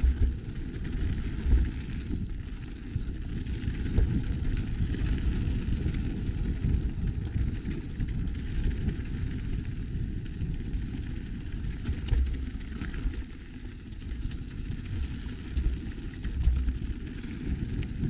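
Mountain bike descending a rocky dirt trail: a steady, bumpy low rumble of the tyres rolling over dirt and stones and the bike being shaken, with a few faint knocks and rattles.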